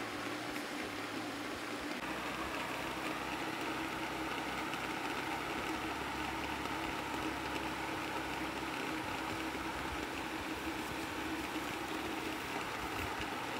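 Steady rush of a shallow stream flowing over rocks, with a faint steady hum underneath.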